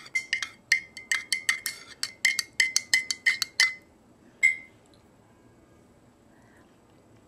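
Metal spoon stirring coffee in a ceramic mug, clinking against the inside about four times a second, each clink with a short ringing note. The stirring stops a little under four seconds in, with one last clink about half a second later.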